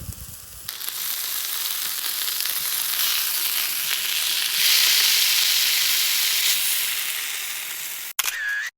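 Food sizzling in a hot frying pan, a steady hiss that swells about five seconds in and cuts off abruptly near the end.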